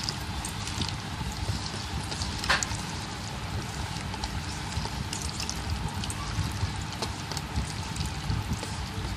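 Wet squelching and sloshing as a hand kneads raw prawns through a thick cornflour-and-egg marinade in a metal bowl, with small wet clicks and one sharper click about two and a half seconds in, over a steady low rumble.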